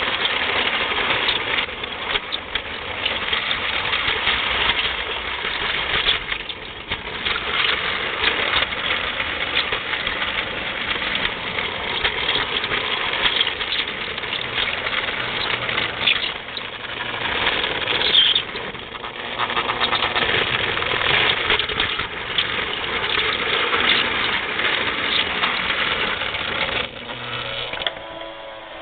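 Marx tinplate toy train running on its tin track, heard close up from on board: a steady rattling clatter of wheels and mechanism, full of fast clicks. Near the end the clatter thins and quietens and a steadier whine comes through.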